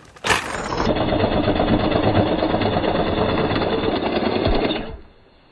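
Reciprocating saw running steadily as its blade cuts through a log, starting with a click and stopping about five seconds in once the cut is through.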